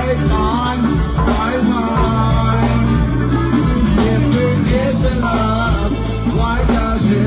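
Live go-go band playing, with a bass line under voices singing.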